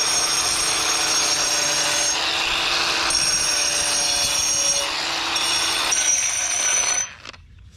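Angle grinder grinding down the front edge of a cast-stone pool coping piece to even out its uneven thickness. The high whine and rough grinding run on, the whine changing a couple of times, then the grinder cuts off about seven seconds in.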